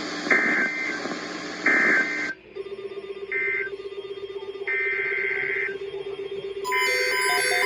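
Emergency Alert System digital data tones, screechy modem-like bursts: three short bursts about a second and a half apart over radio hiss. The hiss then cuts off and a steady low tone runs under longer bursts of the next alert's header, with stepped beeping tones starting near the end.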